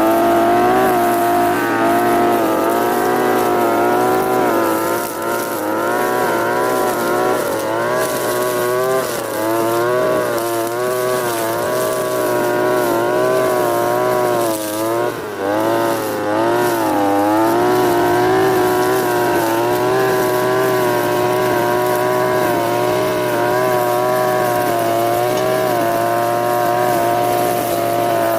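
Europa Hilt EH4326 brushcutter's TB43 two-stroke engine running at high revs, its pitch wavering as the load changes and dipping briefly a few times about halfway through.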